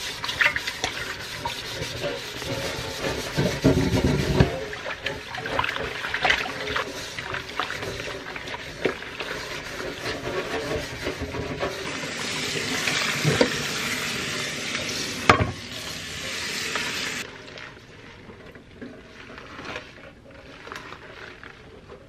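The bottom pot of a stainless steel juice steamer being scrubbed by hand with a wet cloth in a sink: steady wet scrubbing and swishing, with a few sharp knocks of the metal pot against the sink, the loudest about fifteen seconds in. The scrubbing eases off after about seventeen seconds. It is the scrubbing off of a stain left on the pot's sides.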